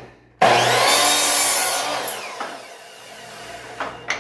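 Power saw cutting a small piece of scrap wood to a rough square: the saw starts sharply about half a second in, cuts for about two seconds, then the blade winds down with falling pitch. Two short knocks near the end.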